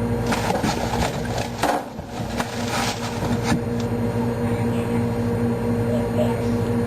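Items knocking and rattling as they are handled in a kitchen cupboard, a cluster of clicks over the first few seconds, over a steady low hum.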